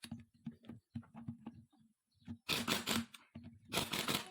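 Clicks and clattering from parts and tools being handled, with two short, harsh scraping bursts about two and a half and almost four seconds in.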